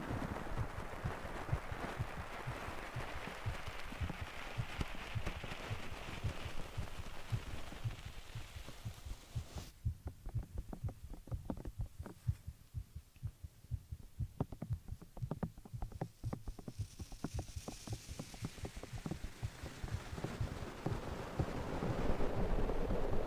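A human heartbeat thumping in a steady, repeated rhythm. A soft hiss lies over it, cuts out sharply about ten seconds in, and returns near the end.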